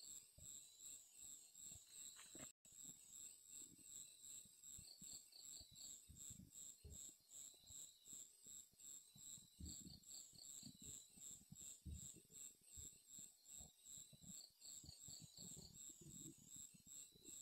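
Faint chorus of night insects: a steady, rapid high-pitched pulsing trill, with a lower chirp in short bursts every few seconds, over faint low rustling.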